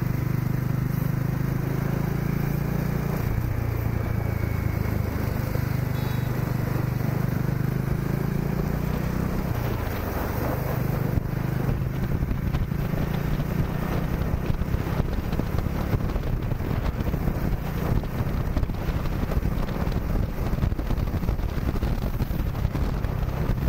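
Bajaj Dominar 400's single-cylinder engine running while riding on the highway; its note shifts pitch a few seconds in, then dips and climbs again about ten seconds in as the rider eases off and accelerates.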